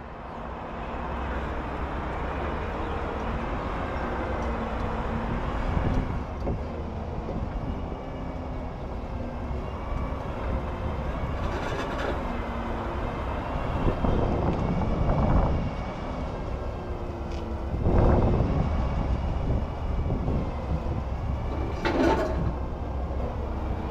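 Forklift engine running, its speed rising and falling as the forklift manoeuvres, with a few short knocks.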